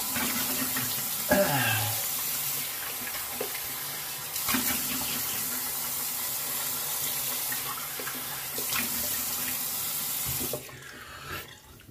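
Bathroom sink tap running steadily while the face is rinsed off after a shave; the water shuts off about ten and a half seconds in.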